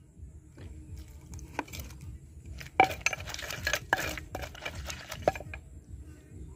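Metal spoon clinking and scraping against a wooden mortar while a wooden pestle pounds and stirs the wet bamboo-shoot salad mixture. It is a run of sharp knocks and clinks, the loudest about three seconds in and another just past five seconds.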